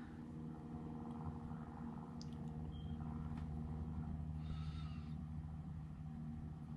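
Quiet room with a low steady hum and a few faint clicks.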